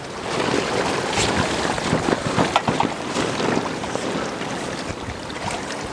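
Strong gale-force wind blowing across the microphone over choppy water lapping at the bank, with scattered small splashes and clicks, busiest in the first half.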